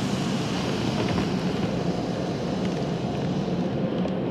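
Automatic car wash working over the car, heard from inside the cabin: a steady rush of water spray and wash machinery.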